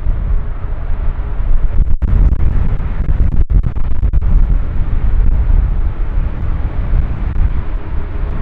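Jet airliner engines running loud and close, a deep rumble under a steady rushing hiss.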